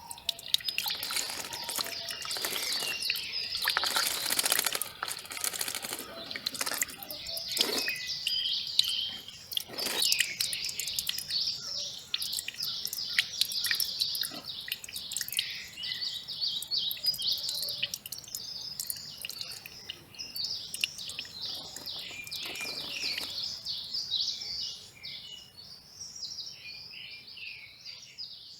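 Small birds chirping in a dense, rapid chatter of high notes, thinning out near the end, with a few short rushes of noise in between.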